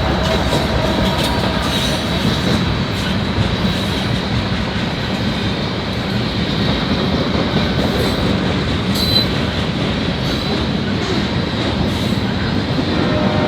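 Freight train rolling past at close range, a steady rumble and clatter of wheels on rail with a thin, steady high wheel squeal over it.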